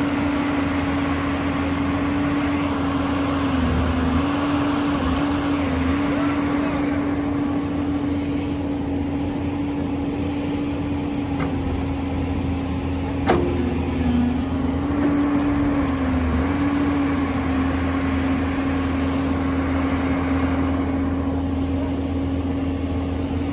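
JCB tracked excavator's diesel engine running steadily while the bucket digs into the earth pile; its note dips briefly several times. There is one sharp knock about 13 seconds in.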